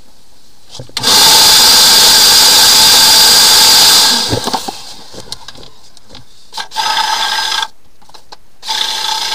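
Electric motor of a drain-cleaning machine running with a steady whine for about three seconds, then switched on twice more in shorter bursts near the end.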